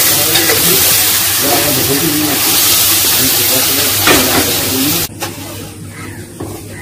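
Mushroom strips and chili sizzling loudly as they are stir-fried with a metal spatula in a steel wok. The sizzling cuts off abruptly about five seconds in, leaving a much quieter stretch.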